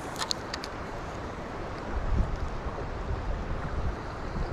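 Fast creek current rushing steadily, with wind buffeting the microphone in low gusts about two seconds in. A few light clicks sound just after the start.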